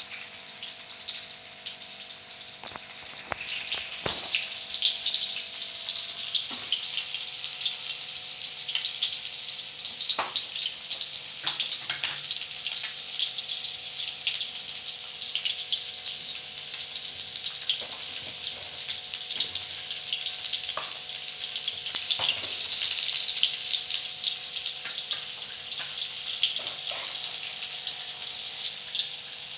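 Chopped shallots, garlic and red chilli frying in oil in a wok: a steady sizzle, with occasional light clicks and knocks.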